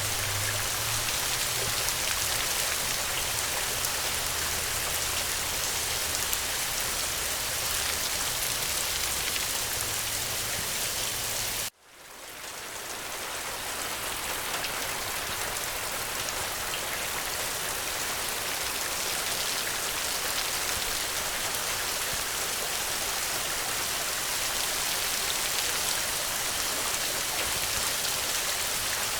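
Steady rain falling on the ground, an even hiss with scattered drop ticks. About twelve seconds in it cuts out abruptly for a moment, then fades back in over a couple of seconds.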